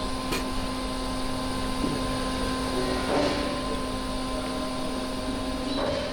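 TIG welding arc running on 5 mm low carbon steel while a T-fillet weld is laid: a steady buzzing hiss with a faint hum underneath.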